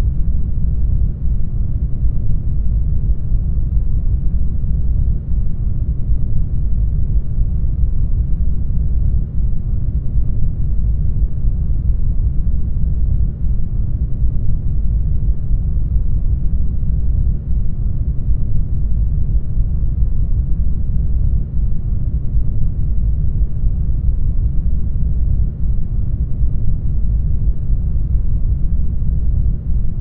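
Isolation tank ambience: a steady, deep, muffled rumble of low noise with no high sounds in it, unchanging throughout.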